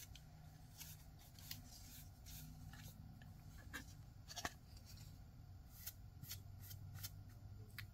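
Faint brushing and scattered light ticks of a short-handled angled paintbrush laying paint onto a metal tin, over a low steady hum.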